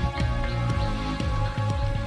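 Background music with a steady beat of about two low drum thumps a second under sustained held tones.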